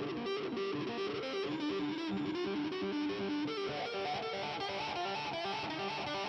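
Instrumental background music led by guitar, played steadily throughout.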